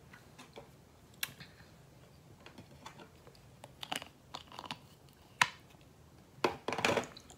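Makeup containers being handled: irregular light clicks and taps, with a sharper click about five seconds in and a quick run of knocks near the end.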